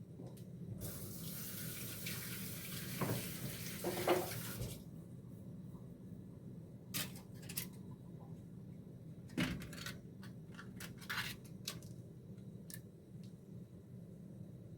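Kitchen tap running into a sink for about four seconds, then shut off, followed by a scatter of short clicks and knocks. A low steady hum lies underneath throughout.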